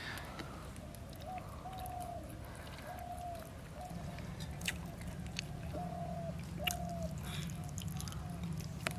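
Chewing and biting sounds of people eating, with a few sharp clicks among them. A bird calls repeatedly in the background in short, even notes.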